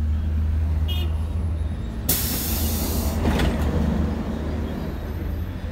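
A diesel BRT bus's engine running with a steady low hum as the bus pulls away from the platform. About two seconds in, a loud burst of compressed-air hiss from the bus's pneumatic system fades out over about a second.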